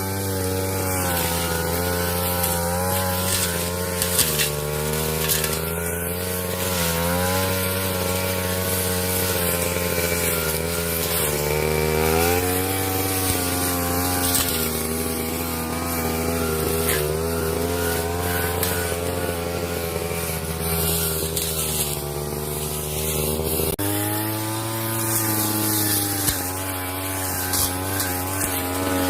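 Brush cutter engine running at working speed, its pitch dipping and rising as the blade cuts through grass, with a sharper change in pitch near the end.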